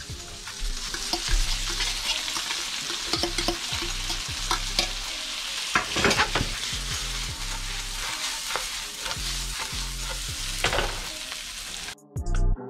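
Spaghetti squash and mushrooms sizzling in brown butter in a hot frying pan as they are stirred and scraped, with frequent clicks of the utensil against the pan. The sizzle cuts off suddenly near the end and music with a beat starts.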